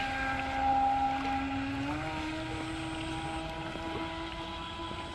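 Radio-controlled speedboat running fast on the water, its motor giving a steady whine that steps up in pitch about two seconds in.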